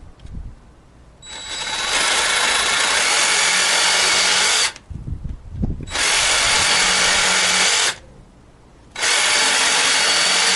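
DeWalt DCS331B cordless jig saw running three times, a bit over three seconds, then about two, then about two, each start and stop sudden, with a few low knocks after the first run. The wood blade is fitted and holds in the toolless clamp.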